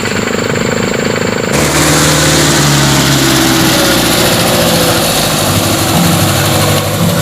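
Mitsubishi Canter truck's diesel engine running, with a wavering note. It suddenly grows louder and rougher about a second and a half in, then holds there.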